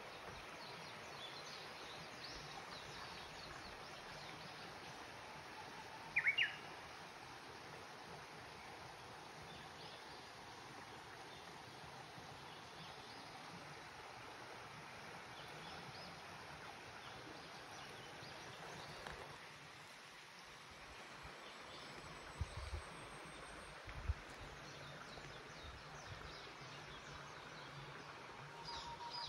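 Faint steady outdoor hiss with a wild bird giving a short call of quick up-and-down notes about six seconds in and again near the end, and a few faint chirps between. A couple of low thumps sound about two-thirds of the way through.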